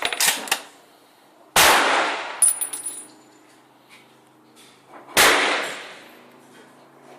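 Remington 700 bolt-action rifle in .30-06 fired twice, about three and a half seconds apart, each shot echoing out. Between the shots come sharp metallic clicks of the bolt being worked, with a high ringing clink.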